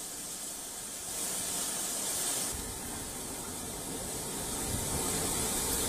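Floodwater rushing down a street, a steady hiss of fast-moving water. About halfway through, a lower rumble joins it.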